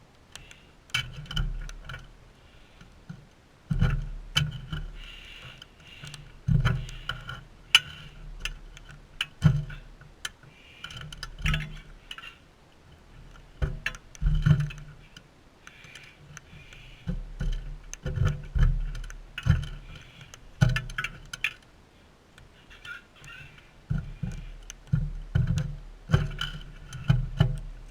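Sulphur-crested cockatoos feeding at a feeder: an irregular run of sharp clicks, taps and dull knocks, several a second, from beaks working seed and claws on the feeder.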